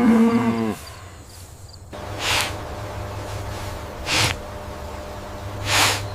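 A cow's moo ending about a second in, then three short breathy bursts of exhaled air about two seconds apart, over a steady low hum.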